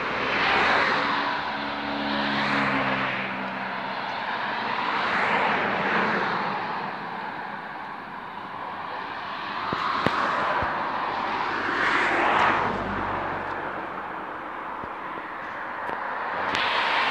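Road traffic: several cars passing one after another on the road alongside, each a swelling and fading rush of tyres and engine. In the first pass the engine's pitch drops as it goes by.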